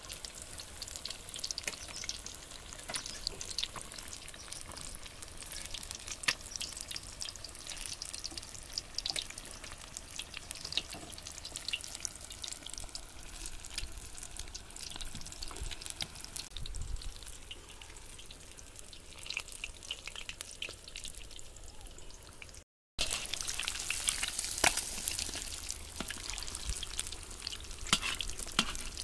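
Battered egg pakoras deep-frying in hot oil in a large iron kadai: steady sizzling dotted with many small pops and crackles. About three-quarters of the way through the sound cuts out for a moment, and the sizzling that follows is louder.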